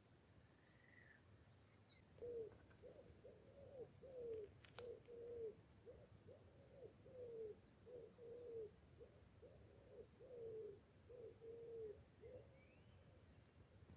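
A forest pigeon cooing: a long, even series of low, soft coos, about two a second, starting about two seconds in. Faint high chirps from another bird come near the start and the end.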